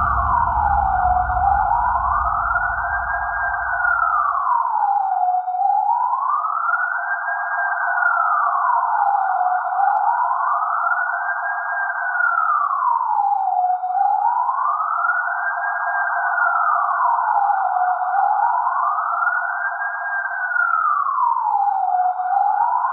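A wailing siren, its pitch rising and falling slowly about every four seconds. A low rumble underneath fades out in the first few seconds.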